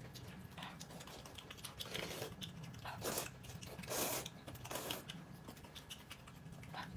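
Rice noodles being slurped from a bowl of soup in a few short, noisy slurps, about two, three and four seconds in, the one at four seconds loudest, with chewing between them.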